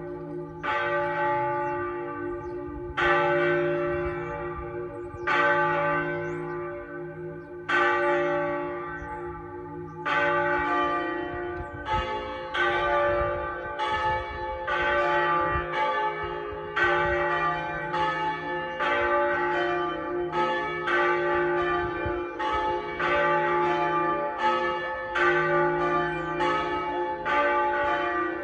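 Pershore Abbey's church bells being rung, with fewer than half of the ring's bells in use. The bells strike one after another, slowly at first, about every two seconds, then quicker, about one a second, from about ten seconds in, each ring overlapping the next.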